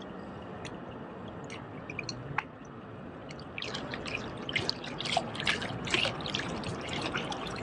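Water lapping and dripping among shoreline rocks: a steady wash with quick little splashes that come thick and fast from about halfway through.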